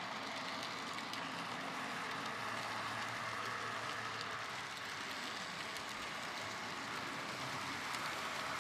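N gauge model high-speed train running along the track and passing close by, giving a steady, even rattle of wheels on rail with its motor.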